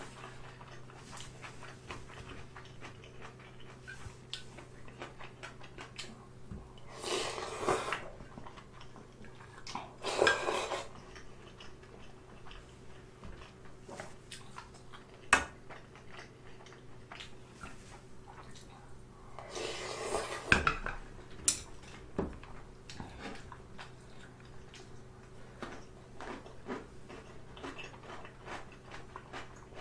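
Mukbang eating sounds: a wooden spoon and chopsticks clinking and scraping in a yellow aluminium ramen pot, with many small clicks and a few sharper knocks. Three longer bursts of noodle slurping stand out, about 7, 10 and 20 seconds in.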